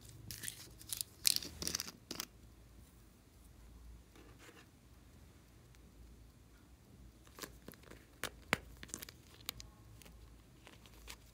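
Crackling and clicking of handled plastic: a glitter bottle being shaken and tapped over slime, then a pink plastic slime container being pried open. The sound comes in two short clusters of sharp crackles, one in the first two seconds and one a little over halfway through.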